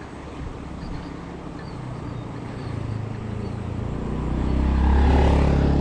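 A motor vehicle's engine drawing near, its low steady hum growing louder from about two seconds in and loudest near the end.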